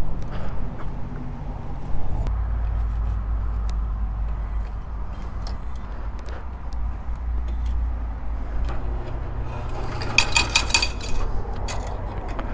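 Small metal pieces jingling and clinking in the hand for about a second, some ten seconds in, over a steady low rumble.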